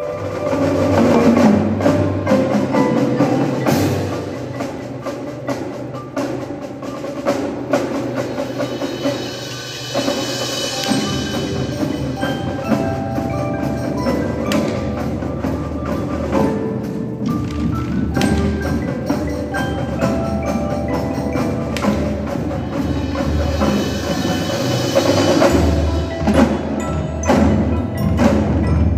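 Indoor percussion ensemble performing: marching snare, tenor and bass drums with a front ensemble of marimbas and other mallet percussion, heard across a gymnasium. A heavy low part comes in about eleven seconds in and grows stronger near the end.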